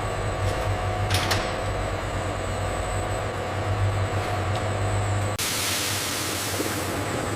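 Processing-line machinery running steadily with a low hum and a single click about a second in; about five seconds in it cuts abruptly to a steady, bright hiss.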